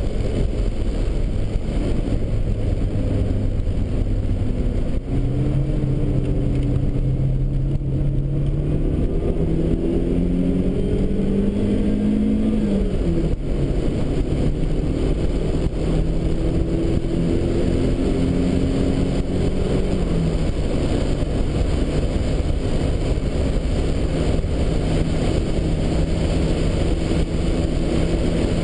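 Turbocharged Nissan Bluebird race car's engine heard from inside the cabin at speed, over heavy road and wind noise. It climbs through the revs for several seconds and drops sharply at a gearchange about halfway through, then runs steadier with another drop in revs later on.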